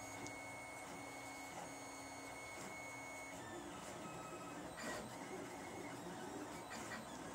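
Lulzbot TAZ 3 3D printer running a print: its stepper motors whine in steady tones that shift in pitch as the print head changes moves, with a couple of brief clicks.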